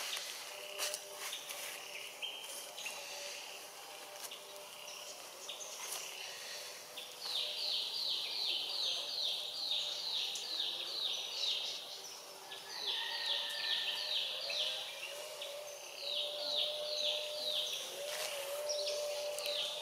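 Woodland ambience in which a high chirping call repeats about three times a second in several bouts, starting about a third of the way in, over a faint steady background of insect-like hum.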